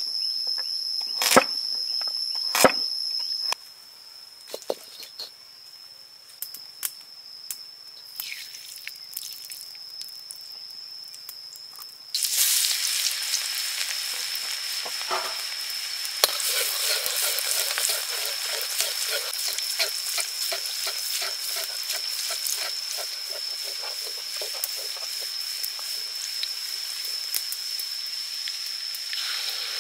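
A cleaver chops carrots on a wooden board, a couple of sharp knocks. About twelve seconds in, hot oil in a wok starts sizzling loudly as chopped food goes in, and it keeps frying with a steady sizzle while being stirred.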